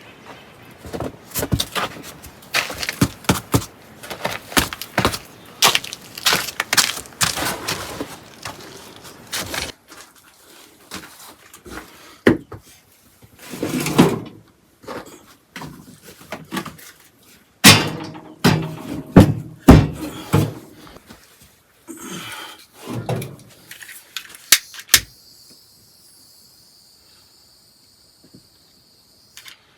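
Irregular knocks, clatters and thumps of hand work, a dense run of sharp knocks for about the first ten seconds, then fewer and heavier thumps, stopping about 25 seconds in.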